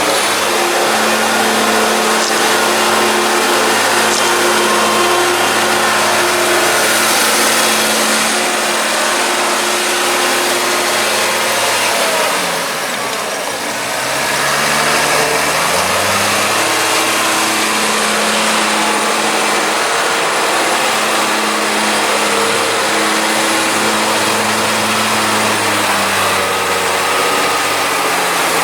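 Tractor engine running steadily under load, its revs dropping about twelve seconds in and climbing back up over the next few seconds before holding steady again.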